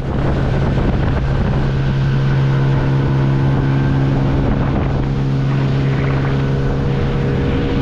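A 30 hp outboard motor on an aluminium tinny running steadily, a constant engine hum, with wind buffeting the microphone.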